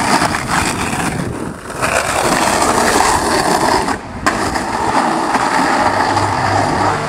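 Skateboard wheels rolling on rough asphalt, a steady gritty rumble, broken briefly about four seconds in before the rolling carries on.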